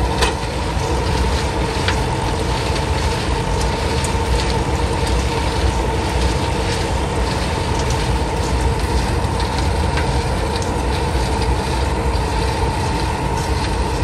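Bitumen drum mixer plant running: a steady mechanical rumble and rattle from its rotating drum and drive, with a steady hum and a few sharp clicks.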